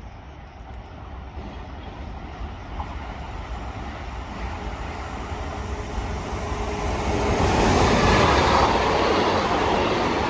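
A train approaching along the line, its wheel and running noise growing steadily louder until it passes close about eight seconds in and keeps rolling by.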